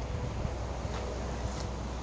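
Steady low hum with faint background hiss; no hammer or chisel strikes are heard.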